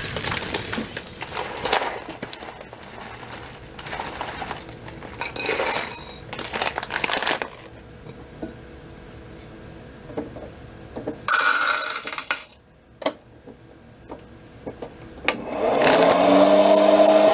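A plastic bag of popcorn kernels crinkling and rustling as it is handled, with one louder rustle a little past the middle. Near the end a hot-air popcorn maker's fan motor switches on, spins up and runs with a steady whir, the loudest sound here.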